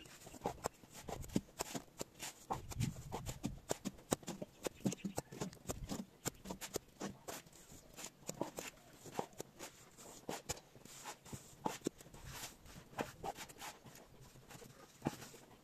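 Hand plastering tools scraping and tapping as cement render is spread and smoothed on a brick wall: an irregular run of short scrapes and clicks.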